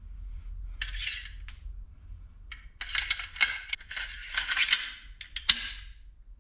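Painted AR-15 rifle parts handled on a workbench: a run of short scrapes and light metallic clicks, busiest in the second half.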